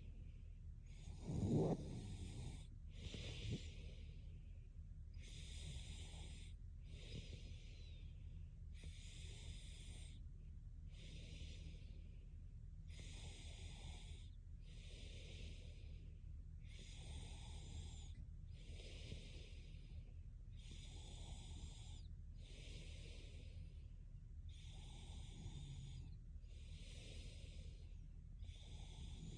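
A sleeping young woman breathing slowly through the microphone: a soft hissy breath about every second and a half, steady and even. A brief louder noise about a second and a half in and a smaller one about two seconds later, over a low steady hum.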